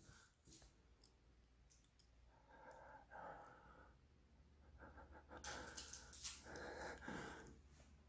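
Near silence: quiet room tone, with two faint breaths, one about halfway through and one near the end.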